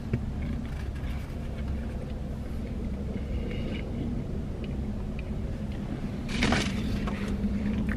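Steady low rumble and hum of a running car heard from inside its cabin, with a brief rustle of movement about six seconds in.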